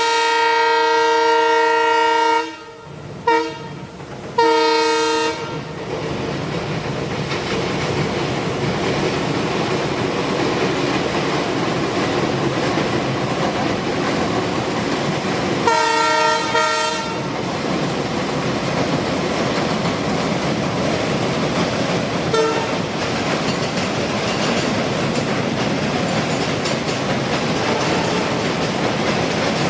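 Passenger train horn sounding one long blast, then two short ones. The train then runs on with a steady rumble and clickety-clack of wheels on the rail joints. The horn sounds again briefly about halfway through.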